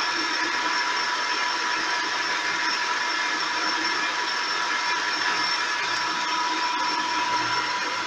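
Gear-head bench lathe running steadily on its VFD, a continuous mechanical whir with a steady gear whine in it.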